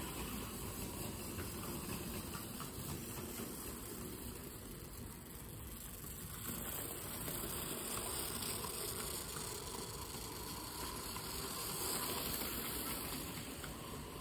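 Hornby clockwork Thomas the Tank Engine running on its wound spring motor, a steady whirring along the track that grows louder as the train passes close by in the second half.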